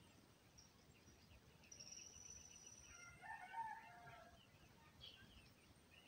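A rooster crows once, faintly, starting about three seconds in and lasting about a second and a half. Before the crow, a rapid run of high bird chirps and a thin high whistle can be heard.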